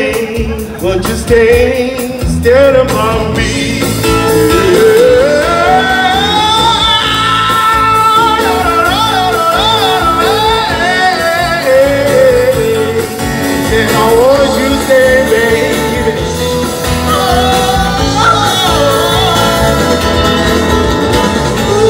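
A man singing into a microphone with a live street band on electric and bass guitar, holding long notes with a wavering vibrato and sliding runs between them.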